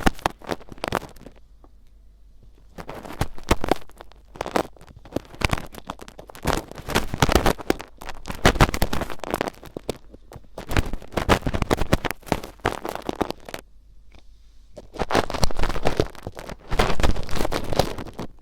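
Ear picks scratching and rustling in an ear in ASMR ear cleaning: bursts of dense, crackly scraping a second or two long, separated by short pauses.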